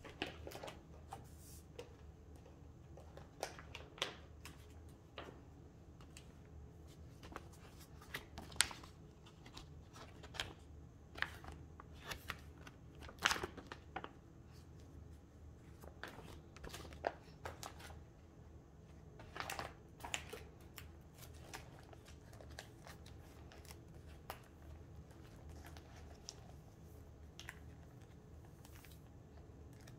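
Photocards and plastic binder sleeves being handled: irregular soft rustles and clicks as cards are slid in and out of the pockets, thinning out in the last third.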